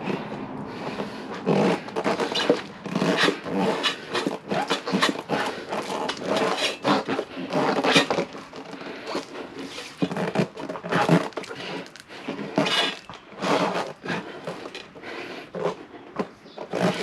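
A motorcycle tire being levered onto its rim by hand, its bead worked over the rim edge: irregular scraping of rubber and tools against the wheel rim, with knocks and clanks of varying strength.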